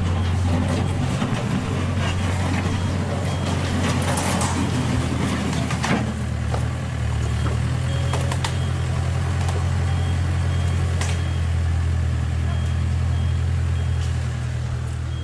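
Diesel engine of a Case backhoe loader idling steadily, a low even rumble, with a few scattered clicks and knocks over it.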